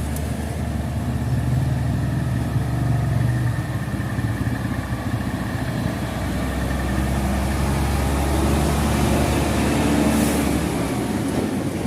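Heavy diesel engine running under changing load, its low drone rising in pitch about a second in, dropping back around four seconds in, then climbing again toward the ten-second mark.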